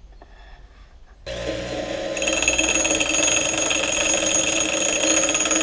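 A bench grinder and a Ridgid cordless drill running together, the drill spinning a bolt-mounted scroll saw plate against the grinding wheel to grind it down to size. The machines start about a second in, and a steady high-pitched whine joins about two seconds in.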